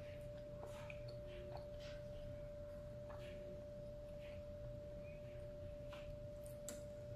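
Faint chewing and mouth clicks from a person eating, over a steady high-pitched electrical-sounding tone that never changes.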